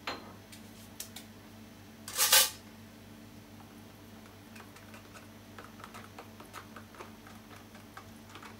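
A spoon clicking and scraping against a small tub while mayonnaise is stirred, over a steady low hum. A single short, loud rustling burst comes about two seconds in.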